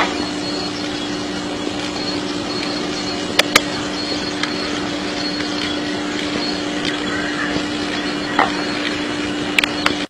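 A steady hum and hiss, with a few short, sharp knocks as a cockatoo lifts and shuts the lid of a woven storage basket: two taps about three and a half seconds in, and a cluster near the end.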